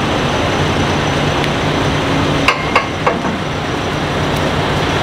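A vehicle engine running steadily, with three sharp knocks about halfway through.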